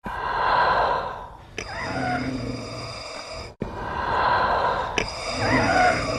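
Darth Vader's respirator breathing in its injured, laboured version. Two full breaths about three and a half seconds apart, each a long hiss followed, after a small click, by a rougher breath carrying a wavering, voice-like tone.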